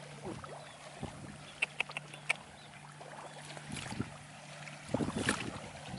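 Water splashing and sloshing in shallow flowing water, with a few sharp clicks around two seconds in and a louder splash near the end.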